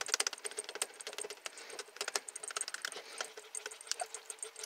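A spatula stirring thick cream sauce in a pot, making rapid, irregular light clicks and taps against the pan.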